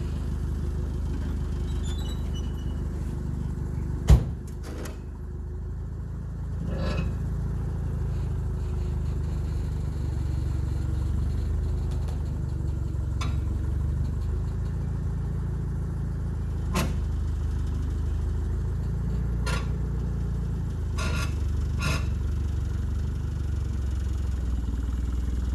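A motor vehicle's engine idles steadily, with a handful of sharp metallic knocks and clanks over it; the loudest comes about four seconds in.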